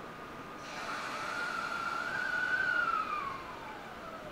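Electric train's motors whining as it starts to move off, over a hiss: one tone rises in pitch, holds, then slides steadily down.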